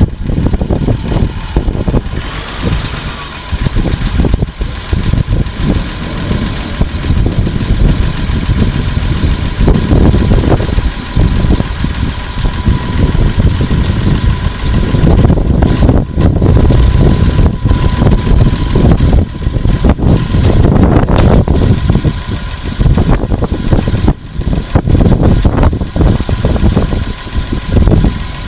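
Tractor-drawn, hydraulically driven potato harvester at work: a heavy, uneven engine rumble with a steady high whine running over it.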